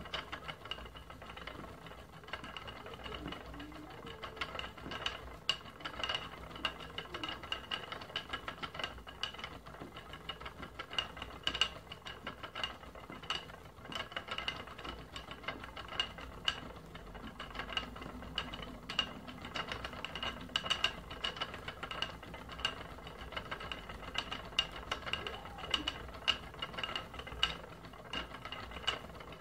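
Wooden spinning wheel running as fibre is spun: the drive wheel and flyer turn with a steady high whine and frequent light clicks and rattles from the moving parts.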